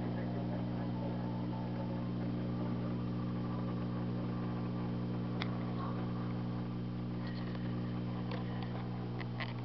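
Steady low electrical hum made of several unchanging tones, with a few faint ticks in the last couple of seconds.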